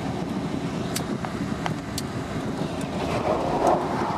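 Steady noise of highway traffic going past a van parked on the shoulder, heard from inside the van, with a few light clicks about one and two seconds in.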